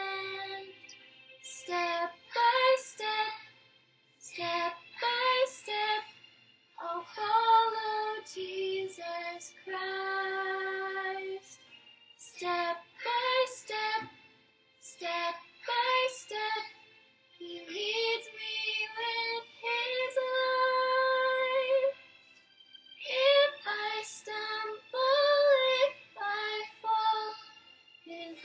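A woman singing a slow devotional song without accompaniment, in phrases of held notes separated by short breaths.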